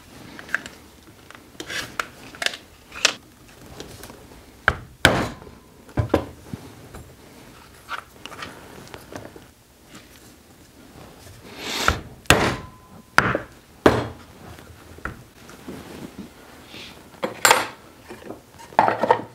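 Leatherworking hand tools and leather being handled on a plastic cutting board over a wooden workbench: irregular sharp taps and knocks as tools are picked up and put down, with quiet scraping and rubbing in between.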